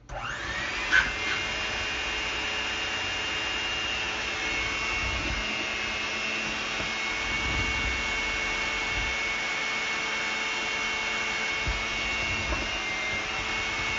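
Electric hand mixer switching on with a short rising whine, then running steadily as its beaters work flour into a sweet-dough batter in a stainless steel bowl. A single sharp knock about a second in.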